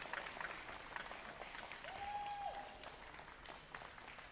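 Audience applauding in a large hall: faint, scattered clapping. A short held tone is heard about two seconds in.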